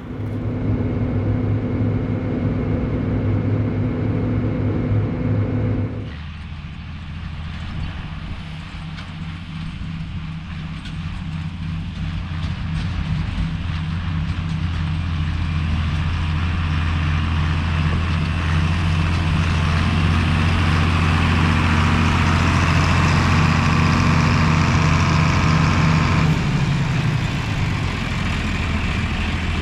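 Farm tractor engine running steadily, its note changing abruptly about six seconds in and building gradually before easing off near the end.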